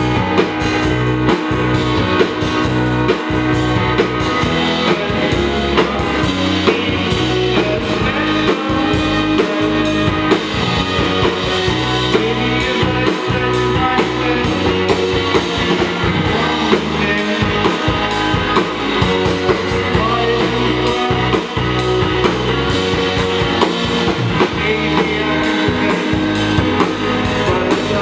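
Rock band playing live: electric guitar, electric bass and drum kit driving a steady beat, with a man singing over them.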